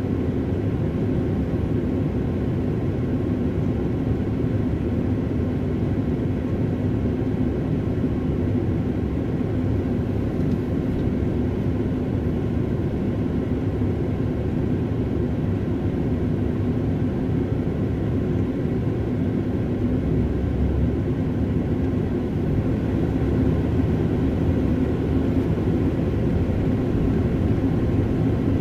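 Steady low rumble of a car heard from inside its cabin, the engine idling while stopped at a light. It grows slightly louder near the end as the car pulls away.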